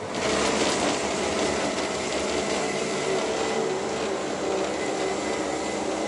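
Yamaha outboard motor on a patrol boat running under power, coming up suddenly at the start and then holding steady, with the hull rushing through the water.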